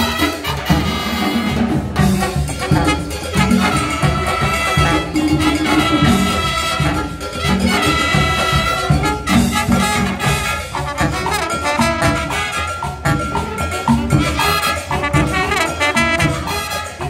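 Marching band playing a salsa-style tune live: trumpets, trombones and sousaphone playing loud, punchy brass lines over a steady Latin drum beat.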